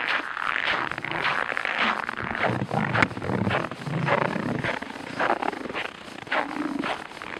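Boots walking on cold, dry snow, each step a squeaking, croaking crunch.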